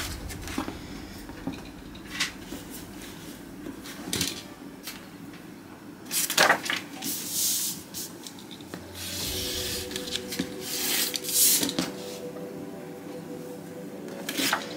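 Rotary cutter slicing through layered fabric around a card template on a cutting mat, in a few short scratchy strokes, among the rustle of fabric and the template being handled and slid about.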